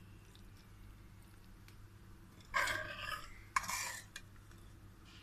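A metal spoon scraping in a steel cooking pot twice as potato mince is served onto a plate, the second scrape opening with a sharp clink.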